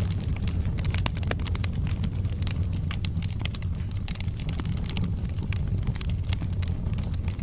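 Wood logs burning in a fireplace: a steady low rumble of flames with many irregular sharp crackles and pops of the burning wood.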